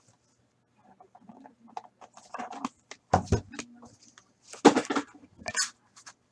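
Hands handling and opening a small cardboard box of The Cup hockey cards: scattered taps, scrapes and rustles of the box, with two louder knocks, about three seconds in and again near five seconds.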